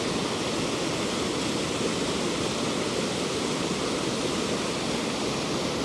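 Fast-flowing creek cascading over rocks at a small waterfall: a steady, even rush of water.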